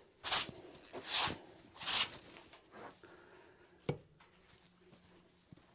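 Brush strokes sweeping sawdust off the freshly sawn face of a hard maple log, three quick swishes in the first two seconds, over steady cricket chirping. A single sharp knock about four seconds in.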